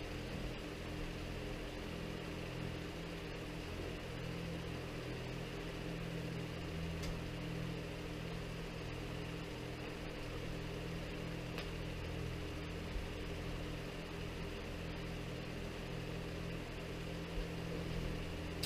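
A steady, even mechanical hum with several held low tones, like a motor or fan running.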